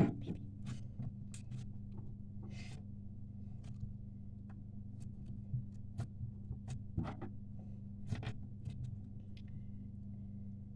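Slime being squeezed and stretched by hand, giving scattered small clicks and pops over a steady low hum.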